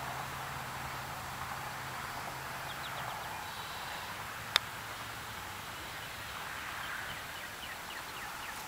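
A single sharp click of a putter striking a golf ball, about halfway through, over steady outdoor background noise. A low hum in the background stops after about three seconds.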